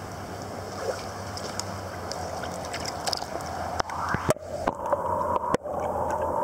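Steady rush of flowing river water. From about four seconds in, a run of sharp knocks and bumps breaks into it several times.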